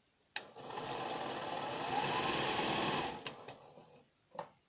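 Pfaff 138 industrial zigzag sewing machine stitching for about three seconds, its motor tone rising as it speeds up and falling back as it slows to a stop. A sharp click comes just before it starts, and a few short clicks follow once it stops.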